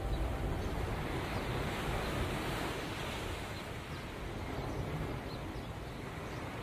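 Steady rushing noise, slowly growing fainter.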